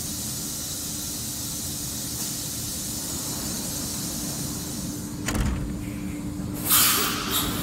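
FANUC Robodrill α-D21LiB5 5-axis machining centre running with a steady hum and hiss. About five seconds in there is a single thump, and a second or so later a loud burst of hissing that dies away.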